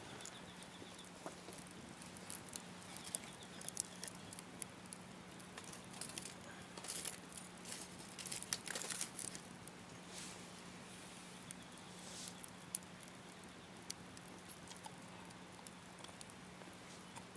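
Campfire crackling: sparse sharp pops and clicks, with a denser run of louder crackles about seven to nine seconds in, over a faint steady hum.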